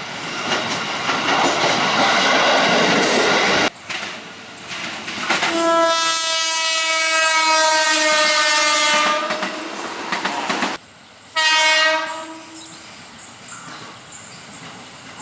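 KRL Commuter Line electric train horn sounding the Semboyan 35 signal, the driver's horn greeting to railfans by the track: one long blast of about four seconds, sagging slightly in pitch, then a short blast about two seconds later. Before it, the rumble and wheel clatter of a train running past.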